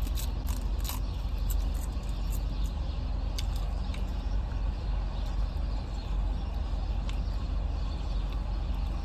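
Steady low rumble of a parked car's idling engine heard inside the cabin, with light crisp crackles of thin seaweed snacks being chewed, mostly in the first few seconds.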